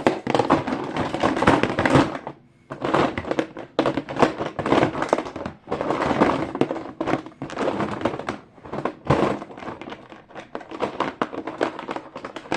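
Small plastic and silicone fidget toys being handled and rummaged, knocking and clacking against each other in dense runs of clicks and thunks, with short pauses between handfuls.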